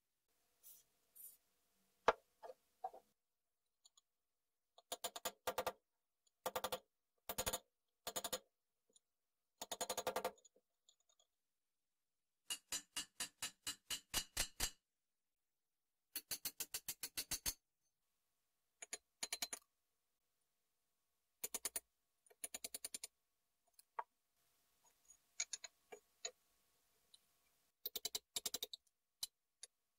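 Runs of quick, evenly repeated short strokes of hand work on the Makita UT2221 mixer's aluminium gear housing clamped in a vise, each run lasting about half a second to two seconds, with silent pauses between.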